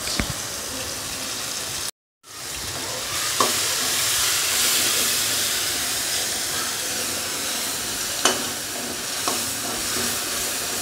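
Paste of ground char magaz (melon seeds), tomato and green chilli sizzling as it fries in hot oil in a steel kadai, with a spatula scraping and clicking against the pan a few times. The sound cuts out for a moment about two seconds in, then the sizzle comes back louder.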